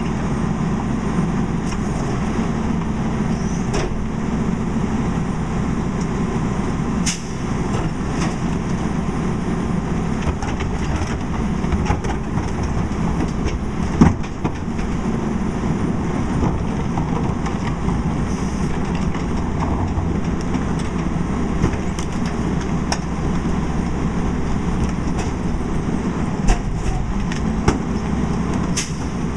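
Rear-loading garbage truck's engine and hydraulics running steadily while cart tippers lift and empty wheeled carts into the hopper, with a few sharp knocks of carts and metal, the loudest about halfway through.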